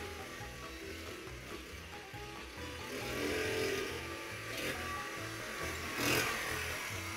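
Small single-cylinder engine of a Hunsun HM50E Bandit mini bike running as it is ridden, growing louder as it comes close about halfway through and again near the end, with music carrying a steady bass beat underneath.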